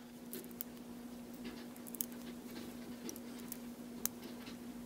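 Lego bricks being handled and pressed together by hand: a few faint, scattered plastic clicks over a steady low hum.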